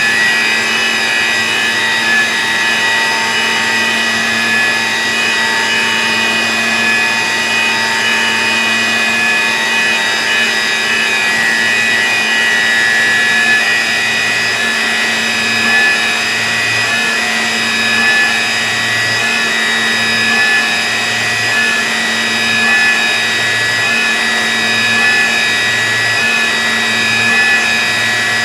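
CroMachine SoldBlock CNC mill cutting aluminium flat bar with a 14 mm end mill: a steady, loud machining whine made of several high tones from the spindle and cutter. From about halfway on, a low hum swells and fades roughly once a second.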